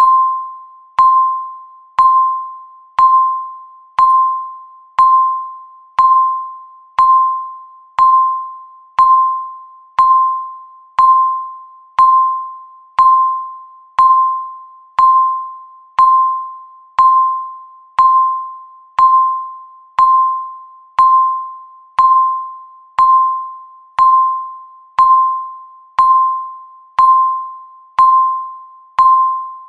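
Countdown timer's tick sound, one per second: each tick a sharp ping of one pitch that rings and fades away before the next.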